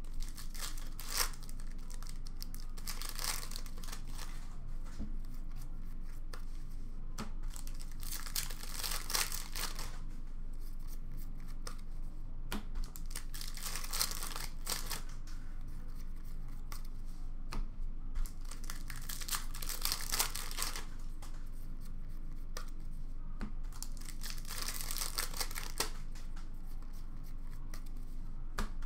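Upper Deck Series 1 hockey card pack wrappers being torn open and crinkled by hand, in short bursts every few seconds.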